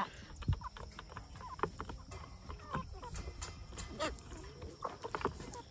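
Farm animals making scattered short calls, mixed with several sharp knocks.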